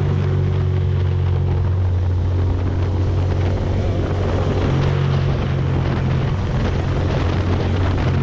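Ducati Monster's V-twin engine running steadily while riding, with wind noise over the microphone.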